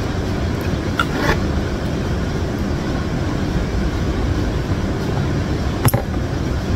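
Steady low rumble of background noise, with a single sharp knock near the end as a glass mug is set down on the table.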